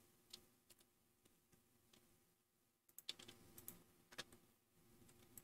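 Near silence with a few faint computer keyboard and mouse clicks, most of them about three to four seconds in.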